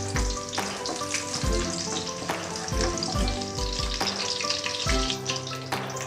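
Chopped garlic sizzling steadily in hot cooking oil in a frying pan as it is sautéed toward light brown, under background music with a regular beat.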